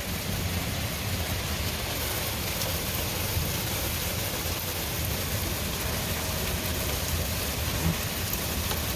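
Torrential rain pouring down in a steady, even hiss.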